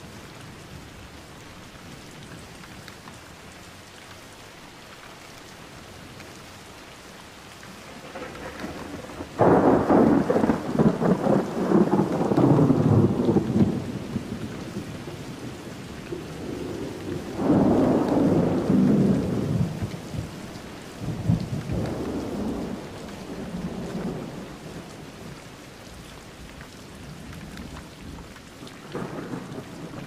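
Steady heavy rain, with rolling thunder over it. A sudden loud rumble starts about nine seconds in and lasts about four seconds, a second comes around seventeen seconds, and fainter rumbles follow.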